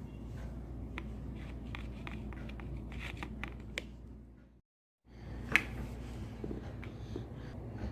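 Light clicks and rustles of hands handling small objects over a steady low hum. The sound cuts out to silence for about half a second around the middle, and a sharp click follows soon after.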